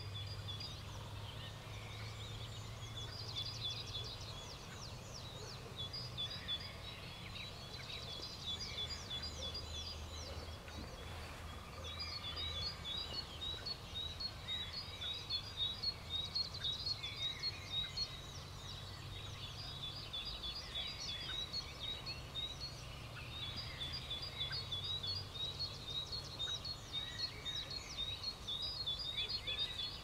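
Dawn chorus of several songbirds singing at once, dominated by fast series of short, high repeated notes, over a steady low background hum.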